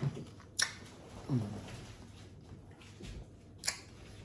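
Close-up eating sounds of someone chewing a Kool-Aid pickle: three sharp mouth smacks and a short falling 'mm' hum about a second in.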